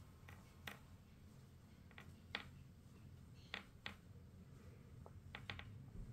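Near silence with scattered faint, short ticks from nylon monofilament fishing line being handled and knotted between the fingers.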